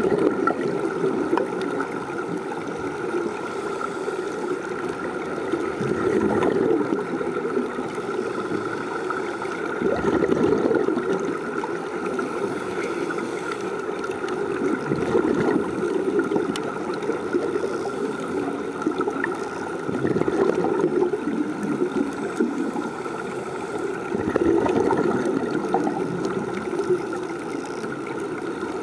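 Underwater bubbling and hiss of air escaping from sea-walk diving helmets fed from the surface. The sound is a steady wash that swells louder every four or five seconds.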